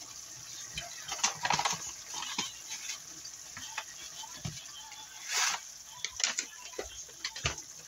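Pork simmering in a wok of soy sauce and vinegar: irregular bubbling pops and crackles, with a short hiss about five seconds in.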